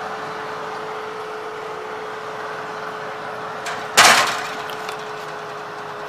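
A running oven hums steadily. About four seconds in, a metal cake tin is set down with one sharp clatter onto the oven's wire rack.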